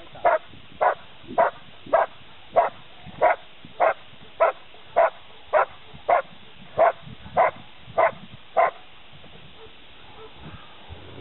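German shepherd barking in a steady rhythm, about fifteen sharp barks a little under two a second, stopping suddenly about three-quarters of the way through. It is the dog's bark-and-hold on a sleeved helper in a blind in protection work.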